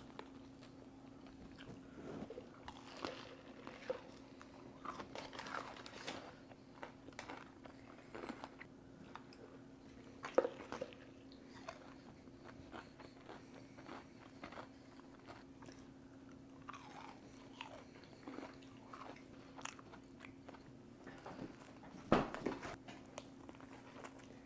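Close-up biting and chewing of crispy Wingstop fried chicken wings: scattered crunches throughout, with a louder bite about ten seconds in and again near the end. A faint steady hum runs underneath.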